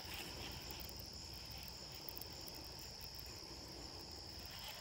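Steady high-pitched insect chorus, a continuous even trill without breaks, with a faint low rumble beneath.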